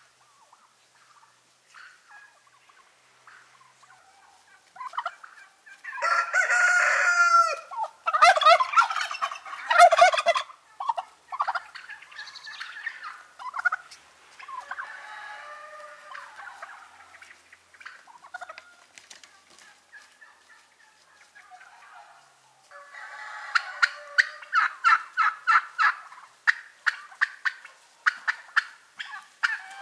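Domestic turkeys gobbling in several bouts: loud rattling gobbles about six to eleven seconds in, softer calls after, and a long rapid gobbling run near the end.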